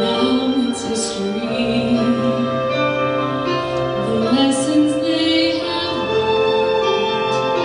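A solo female voice singing long held notes over instrumental accompaniment.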